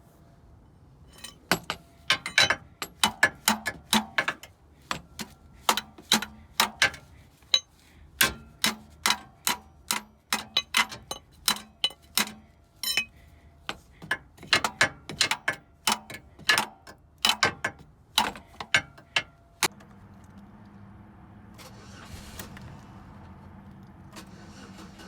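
Repeated sharp knocks, two to three a second in runs, as the seized starter motor of a 2000 Chevy Malibu is struck by hand to free it so the engine will crank. Near the end the knocking stops and a steady engine hum starts suddenly.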